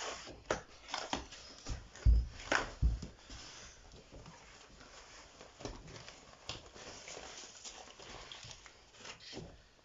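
A large cardboard flat-pack box being handled for unpacking: scattered knocks and two heavy dull thumps about two to three seconds in, then softer scraping and rustling of cardboard with a few clicks.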